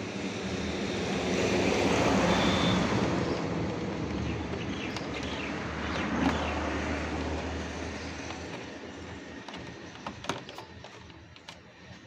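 A passing vehicle: a rushing noise with a low hum that grows over the first two seconds, then slowly dies away, with a few light clicks near the end.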